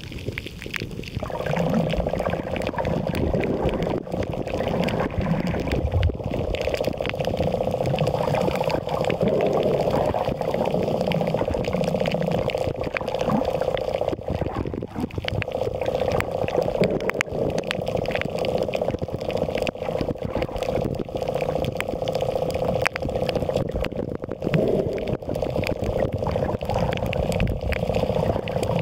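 Muffled underwater sound from a submerged camera: a steady watery hiss with a continuous mid-pitched hum that comes in about a second in.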